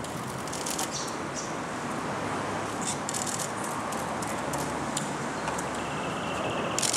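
DSLR camera shutters firing in short rapid bursts, several times, over a steady background hiss.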